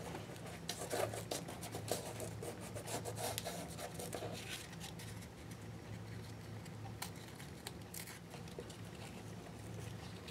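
A piece of brown paper bag being handled and folded on a work surface: light rustles, rubs and many small clicks, busier in the first few seconds, over a low steady hum.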